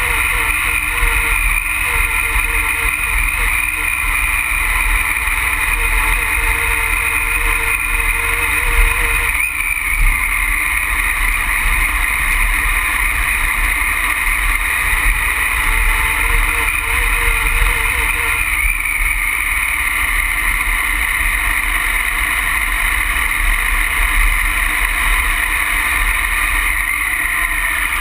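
Triumph Tiger Explorer's three-cylinder engine running steadily as the bike is ridden, with a constant low rumble of wind on the microphone. The engine note drops briefly and climbs again twice.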